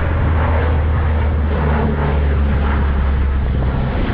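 Lockheed C-130 Hercules four-engine turboprop flying over, a loud steady low drone.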